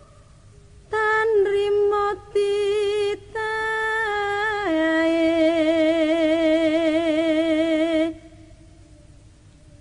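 A lone woman's voice singing unaccompanied. It comes in about a second in with a few short phrases, then drops to one long held note with a wide, wavering vibrato that stops about eight seconds in.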